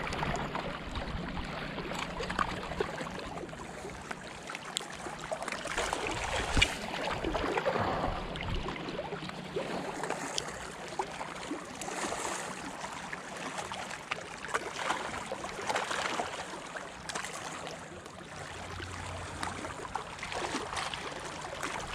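Small waves lapping and splashing against a rocky shoreline: a steady wash with scattered little splashes.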